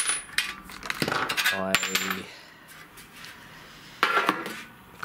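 Light metallic clinks and short handling noises as small metal parts of a model truck chassis are moved about by hand.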